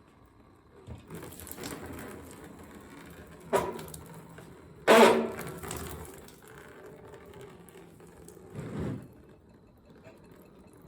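Shop work noise from handling engine parts and tools: a sharp knock about three and a half seconds in and a louder one about five seconds in, with scraping and shuffling between them.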